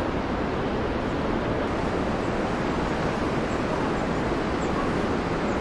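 Steady rush of fast, turbulent river water in rapids, an even roar of noise with no breaks.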